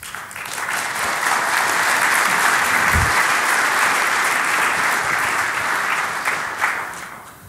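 Audience applauding, swelling over the first second and tapering off near the end, with a brief low thump about three seconds in.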